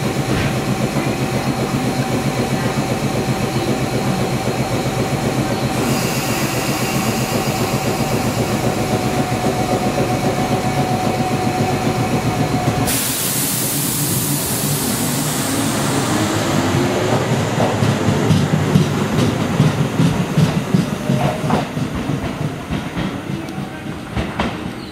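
Tobu 300 series electric train pulling out of the platform and running past, its wheels clattering rhythmically over the rail joints. The clatter is loudest about three quarters of the way through, then fades as the last car goes by.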